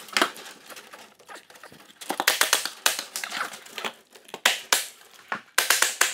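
Expanded metal lath crinkling and rattling as it is bent and pressed around a hearth frame, a series of sharp metallic clicks and snaps that come in clusters, densest near the end.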